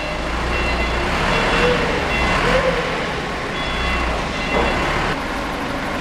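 Forklift engine running as the truck moves off, with short warning beeps sounding on and off over a steady rumble.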